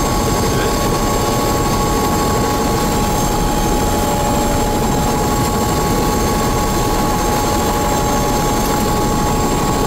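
Helicopter turbine engine and rotor running at ground idle, heard from inside the cabin: a steady, loud dense rumble with a constant high whine over it.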